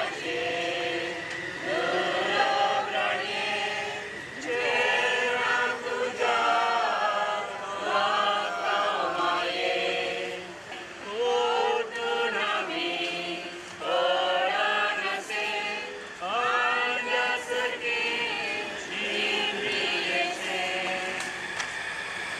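A group of people singing together in a choir-like chorus, in phrases of a second or two with short breaks between them.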